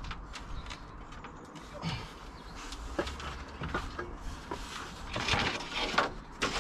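Scattered knocks, clicks and scrapes of wooden pergola parts being worked on and handled, with a denser rasping stretch about five to six and a half seconds in.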